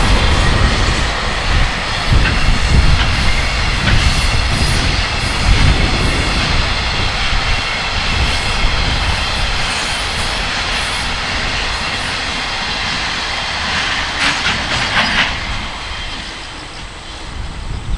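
Freight train hauled by an electric locomotive rolling past, its wagons running steadily by, then fading away near the end. Heavy wind buffets the microphone throughout.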